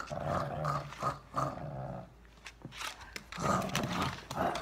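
Small dog growling playfully in short bouts while tugging on a toy in a game of tug. There is a lull in the middle, and the growling comes back louder near the end.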